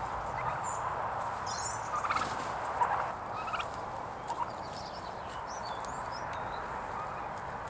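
Domestic turkeys calling as they forage in grass: a few short rattling clucks about two and three seconds in, with some faint high chirps.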